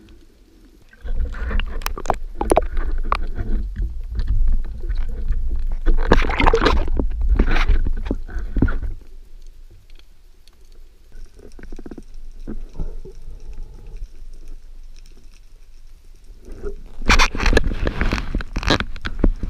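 Underwater sound of a speargun and diver moving through the water: a low water wash with knocks, scrapes and clicks from handling the gun. It is quieter in the middle and grows loud again near the end.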